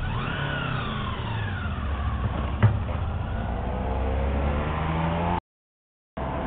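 Supercharged Honda VFR800 V4 pulling away, its revs and Rotrex supercharger whine rising and then falling off. A single knock about two and a half seconds in, then a lower, steadier engine note from traffic on the road. The sound drops out for under a second near the end.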